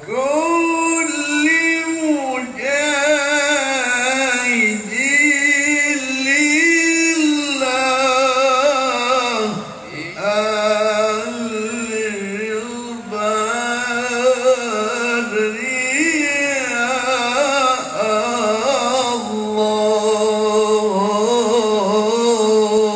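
A man's solo Arabic chant in the qari style, sung into a microphone through a PA system: long ornamented phrases with held, wavering notes, breaking off briefly about ten seconds in before going on.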